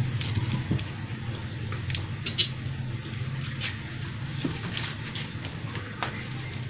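Scattered light knocks and scrapes of a motorcycle tire being worked onto a spoked steel rim by hand and with tire levers, over a steady low hum.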